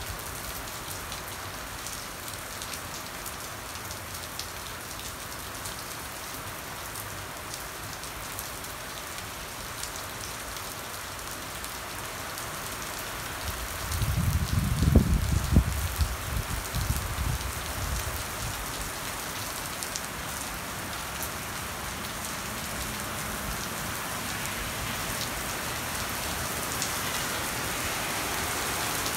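Heavy rain pouring steadily onto pavement, an even hiss that grows slowly louder toward the end. About halfway through, a low rumble swells for a few seconds and fades.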